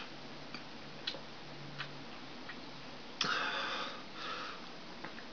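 A person drinking from a glass bottle: faint swallowing clicks, with a louder breathy gulp about three seconds in.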